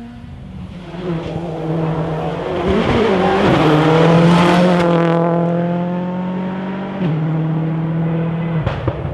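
Rally car at full throttle passing by on a special stage, loudest about four seconds in as it goes past, with a gear change about seven seconds in before the engine note cuts off sharply near the end.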